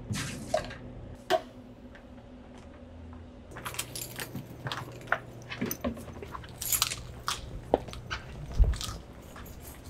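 Scattered clinks, knocks and rustles of glasses and other items being handled at a bar counter, busier from about three and a half seconds in, over a low steady hum.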